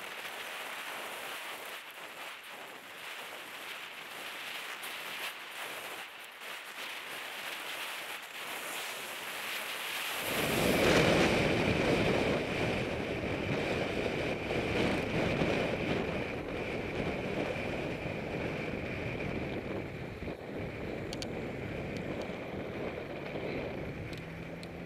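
Wind and road noise on a helmet-mounted camera while riding a road bike: a steady hiss that turns, about ten seconds in, into a louder buffeting rumble of wind over the microphone.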